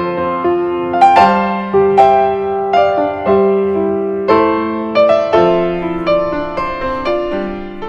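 Piano music at a slow pace: single struck notes of a melody fading after each strike, over lower held notes.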